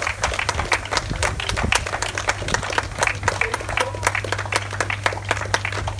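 A small group of people clapping, a dense, irregular patter of hand claps over a steady low hum.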